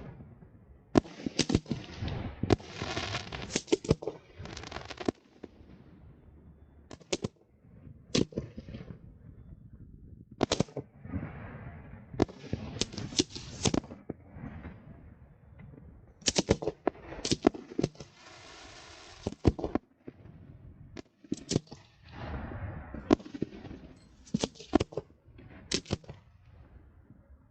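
Fireworks display heard close to the launch area: a rapid, irregular run of sharp bangs from shells bursting, with crackle between them and a steady hiss lasting about a second and a half about two-thirds of the way through.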